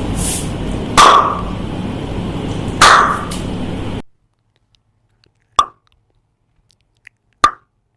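Four sharp single claps or knocks testing how the untreated room rings, two of them over a steady hiss that cuts off about four seconds in, two more in quiet.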